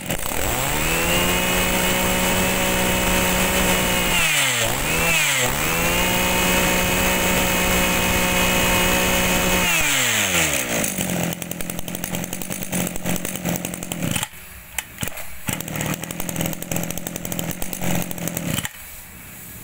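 Small two-stroke engine of a used Mitsubishi 26 cc brush cutter revved up and held at high speed, with two quick throttle dips about four to five seconds in. It is revved up again and held, then let back down to a lower idle about ten seconds in.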